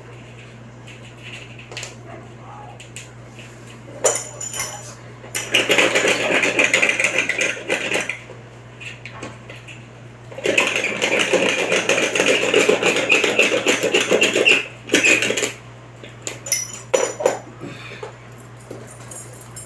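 A tool working on aluminium: two long runs of fast, rasping noise, the first about two and a half seconds long and the second about four, with scattered sharp metallic clicks between and after them.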